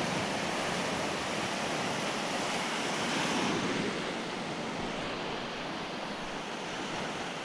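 Surf washing up a shallow beach: a steady rush of breaking waves that swells about three seconds in and then eases off.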